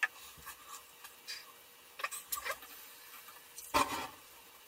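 Tongs and a red-hot steel gear blank clicking and scraping against the rim of a quench pot. About 3.8 s in there is a short, loud burst as the hot steel goes into the oil and the oil flares up.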